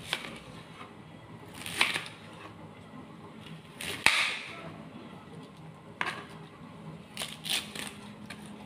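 Kitchen knife cutting through a cabbage onto a plastic cutting board: several sharp cuts at uneven intervals, the loudest about four seconds in and a quick cluster near the end.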